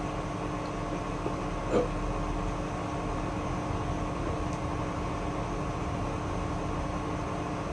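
Hoover front-loading washing machine running mid-cycle: a steady motor hum over an even mechanical noise, with one brief small sound a little under two seconds in.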